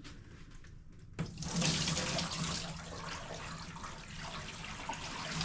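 Water starting suddenly about a second in and pouring steadily into a newly installed bathtub, the water sent down to leak-test the tub's drain.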